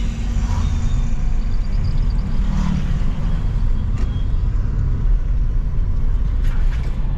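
Road vehicle on the move: a steady, loud rumble of engine and road noise.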